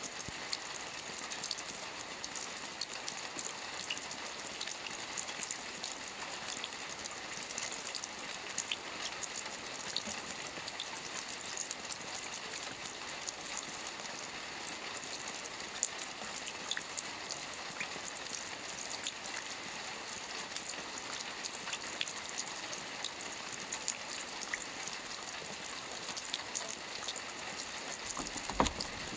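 Steady rain falling, an even hiss with scattered individual drop ticks, and one louder knock near the end.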